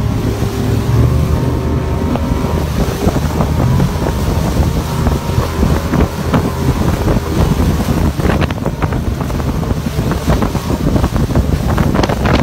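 Boat motor driving a loaded open wooden river boat through fast water, with water rushing and splashing against the hull and wind buffeting the microphone; the splashes grow busier near the end.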